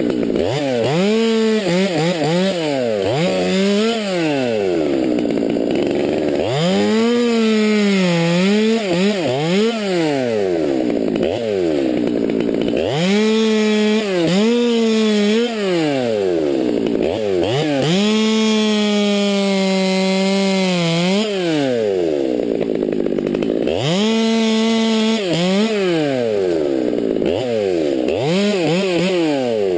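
Stihl MS200T top-handle two-stroke chainsaw running and cutting maple limbs, its engine pitch rising and falling over and over as the throttle is worked and the chain bites into the wood.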